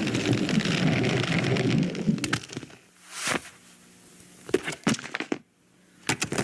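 Film sound effects: a dense rumbling noise that stops about two seconds in, followed by scattered sharp cracks and clicks, a cluster of them near the end.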